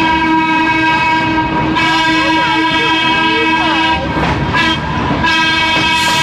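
Trolley horn sounding two long blasts at one steady pitch, the first about four seconds long and the second starting about five seconds in, heard from aboard the moving car.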